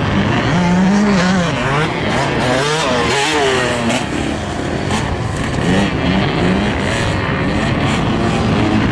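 Dirt bike engine revving hard, its pitch rising and falling again and again as the rider works the throttle up a steep, loose hill climb.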